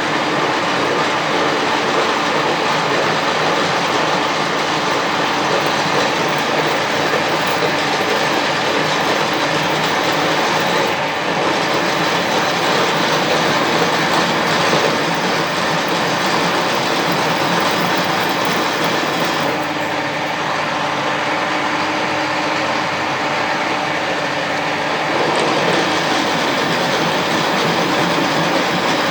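Loud, steady machine noise with a constant hum, dipping briefly twice and shifting slightly near the end.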